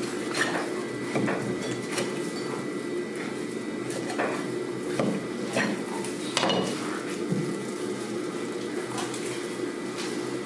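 Kitchen knife scraping and knocking against a plastic cutting board as it works over a raw skate, in short irregular strokes. A steady low hum runs underneath.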